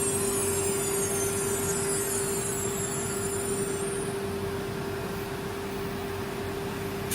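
Disk tool-change CNC router running with a steady machine hum and tone. A high whine falls in pitch and fades out about four seconds in, and a short hiss comes near the end.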